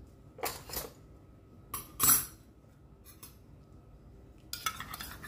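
Metal spoon and small steel bowl knocking and scraping against a large stainless steel mixing bowl: a few short clatters, the loudest about two seconds in, then steady clinking and scraping as the spoon stirs the liquid near the end.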